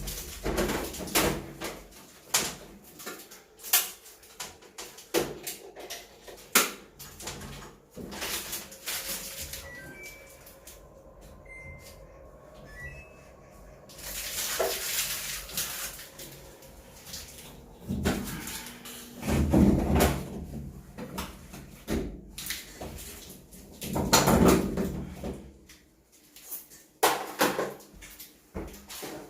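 Irregular knocks, clunks and rattles of a top-loading washing machine being handled and fitted, with a few short high beeps near the middle and several longer rushing noises in the second half.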